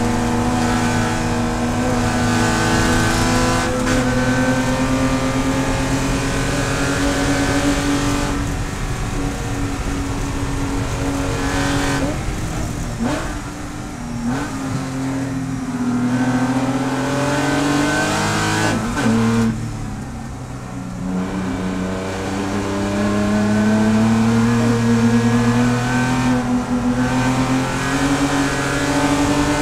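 Onboard sound of a Spec Boxster race car's flat-six engine at racing speed: the pitch climbs steadily under acceleration and drops sharply at several shifts and braking points, with a brief softer lull in the middle.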